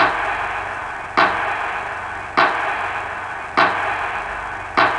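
Sharp hits repeating evenly about every 1.2 seconds, five in all, each trailing off into a fading hiss over a steady background hiss.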